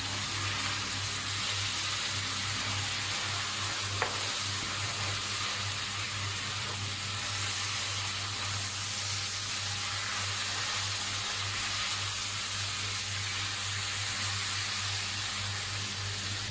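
Uncooked rice and marinated chicken sizzling in a stainless-steel wok while being stirred and turned with a silicone spatula, the rice being sautéed before it goes into the rice cooker. A steady low hum runs underneath, and there is one sharp tap about four seconds in.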